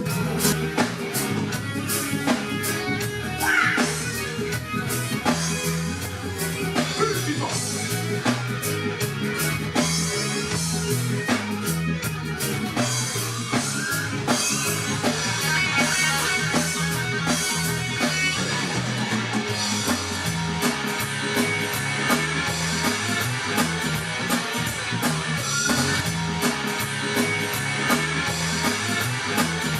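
Live band playing an instrumental passage during a sound check: guitar and drum kit over a moving bass line, with a steady beat.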